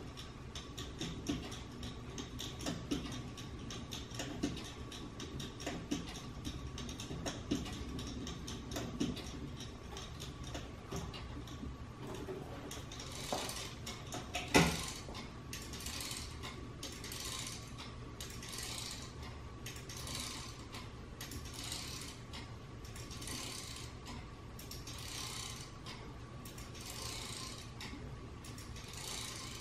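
The spring-driven gear mechanism of a 3D-printed plastic kinetic wall sculpture: a ratchet clicking rapidly as the hub is wound by hand, a single sharp knock about halfway, then the gear train running with a regular soft rasping beat a little faster than once a second as the wheels turn.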